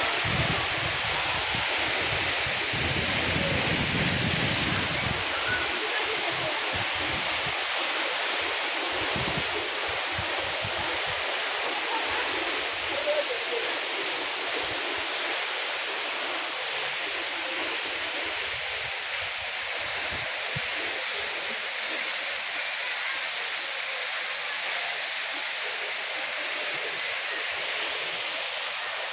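Waterfall: falling water rushing with a steady hiss-like noise, with a low rumble in the first few seconds and a brief knock about halfway.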